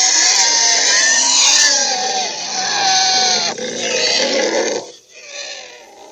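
Monster creature sound effect: a loud, harsh, animal-like growl with wavering squealing tones in it, changing character about three and a half seconds in and dying away near the end.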